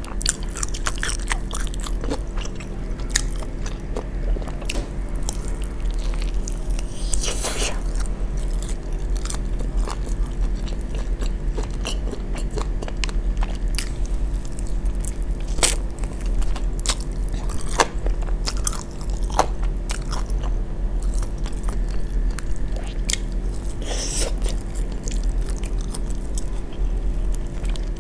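Close-miked eating sounds: biting into and chewing fried chicken wings coated in BBQ sauce, with scattered crunches and mouth clicks. A steady low hum runs underneath.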